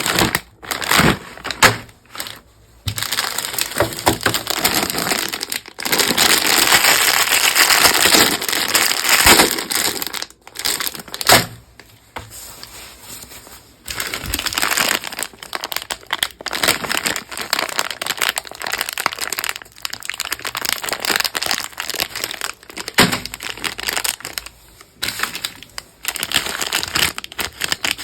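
Crinkly plastic chocolate-pack wrapping being handled and crumpled in irregular bursts of rustling, with short pauses between them.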